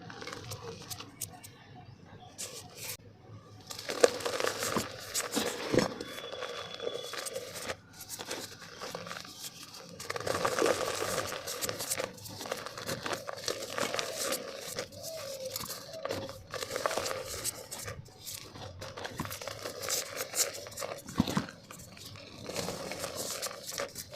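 Dry black mud dirt crumbs crumbling and crunching in a clay pot: a dense run of crackles and sharp snaps, quiet for the first few seconds and thick from about four seconds in.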